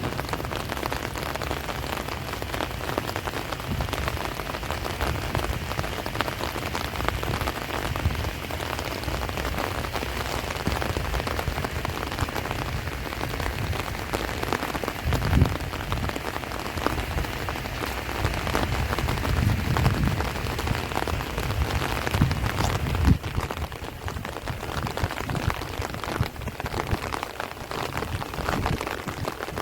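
Heavy rain falling steadily on rice plants and trees, a dense even patter. A few short, low rumbles of wind gusting against the microphone come through around the middle.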